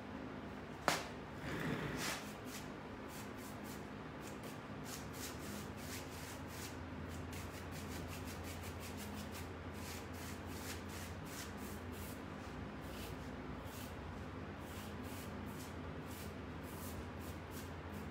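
Paintbrush bristles brushing against a painted wooden cabinet door, a run of short swishes a few times a second. A sharp click and a brief rustle come about a second in.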